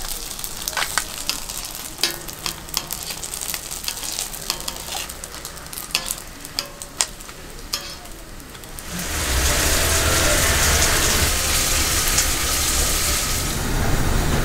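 Metal tongs clicking and scraping on a flat-top griddle and a melamine plate as pan-fried dumplings are lifted off, over a light sizzle of oil. About nine seconds in, a loud, even sizzling hiss sets in and eases off near the end.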